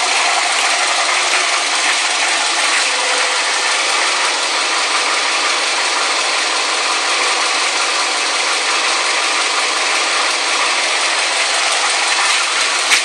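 A 2008 Scion tC's 2.4-litre four-cylinder engine idling with the hood open: a steady, even mechanical running noise with a light rattle in it. A single sharp click comes near the end.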